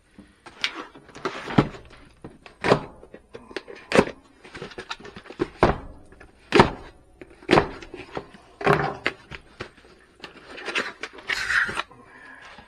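Irregular hard plastic knocks and clacks of tools and packaging being handled and set down during unboxing, with a stretch of rustling near the end.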